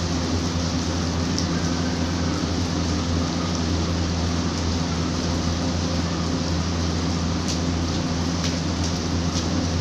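Steady rain falling on a rooftop terrace, a constant hiss with a few faint sharp ticks, over a low steady hum.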